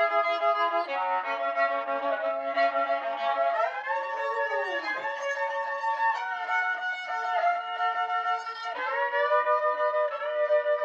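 Solo violin bowing a slow melody of long held notes, changing pitch every second or so and sliding into some of them.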